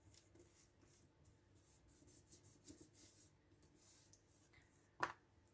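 Very faint rubbing of a kneaded eraser over drawing paper as it lifts pencil lines, then a brief paper rustle near the end.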